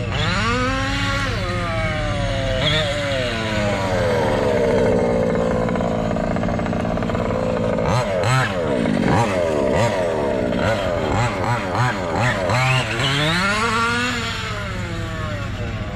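Two-stroke petrol engine of an MCD XR5 1/5-scale RC rally car, revving up and down as it is driven around, its pitch rising and falling again and again.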